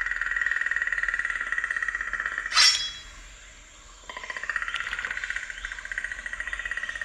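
Jungle-style ambience: a steady, fast-pulsing insect trill, broken by one brief, loud, sharp sound about two and a half seconds in. The trill drops away for about a second just after and then comes back.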